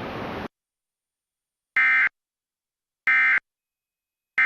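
Emergency Alert System SAME data bursts: three identical short, shrill, buzzy digital warbles about a third of a second each, spaced about 1.3 seconds apart. Three bursts right after the spoken message are the end-of-message code closing the alert. A steady hiss cuts off about half a second in, before the first burst.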